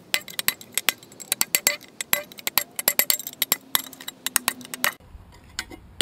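Rapid light metal-on-metal taps and clinks as the rusted steel outer ring of an old suspension bush, weakened by drilling, is tapped out of the eye of a Suzuki Jimny trailing arm. The taps come several a second and thin out near the end.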